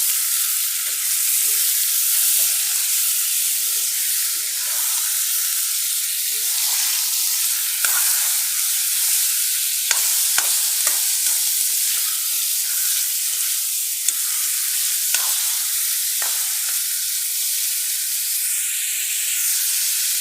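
Food frying in hot oil in a pan, sizzling steadily, with a few sharp knocks of a utensil stirring against the pan.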